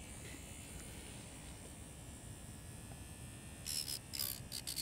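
Faint, thin whine of a small DC motor spinning a slitting saw, run off a 50 W solar panel in failing light. Near the end the saw meets the packing tape with a few short scraping bursts, and the whine falls in pitch as the motor bogs down: too little power to cut the tape.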